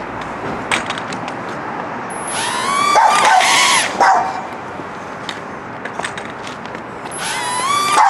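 A dog barking in two bouts of high, yelping barks, one about two seconds in and another near the end.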